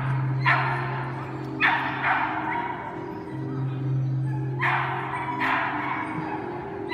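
Scottish terrier barking in short barks, about four of them in two pairs, over steady background music.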